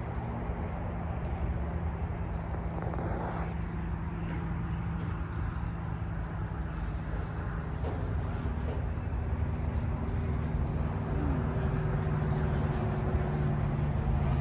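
Road noise inside a moving car: a steady low rumble of tyres and engine, the engine note rising a little and getting louder about ten seconds in.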